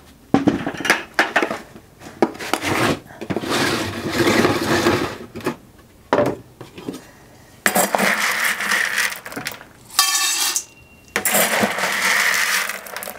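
Dry beans poured from a storage bin into a stainless steel Instant Pot insert, rattling against the metal in three long pours with short pauses between. A brief ringing knock about ten seconds in.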